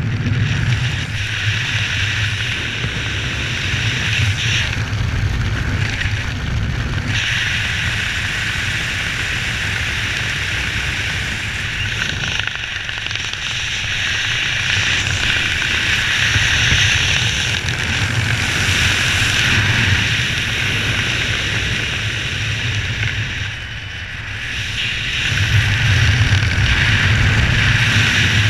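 Wind rushing over the camera's microphone under an open parachute canopy: a loud, steady rush that swells and eases, dropping briefly near the end before picking up again.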